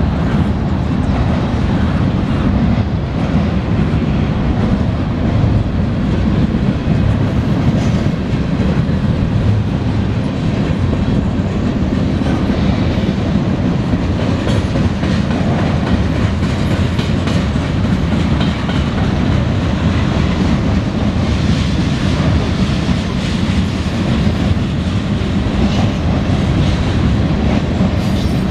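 CSX mixed freight train rolling past close by: the steel wheels of flatcars and boxcars running over the rails in a steady, loud rumble, with occasional clicks.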